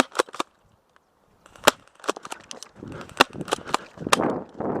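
Airsoft guns firing single shots: about a dozen sharp pops and clacks at irregular intervals, with a pause of about a second near the start.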